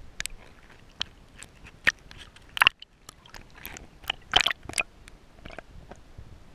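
Irregular sharp splashes and crackles of water close to a submerged camera, about nine in all, the loudest about two and a half and four and a half seconds in, over a faint underwater hiss.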